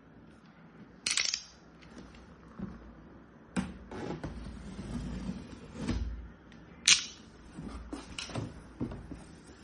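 Hard objects being handled: a series of sharp clicks and knocks, three of them louder, about a second in, at about three and a half seconds and at about seven seconds, with quieter knocks between.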